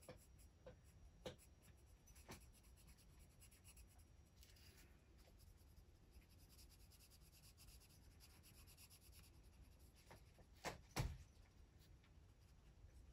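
Faint scratching of an oil-based colored pencil shading on paper, with a few soft clicks and two louder ones near the end.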